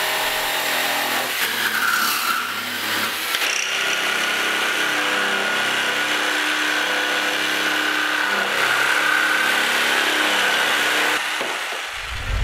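ROK 800W jigsaw running and cutting timber: a steady motor whine over the rasp of the reciprocating blade. It winds down and stops near the end.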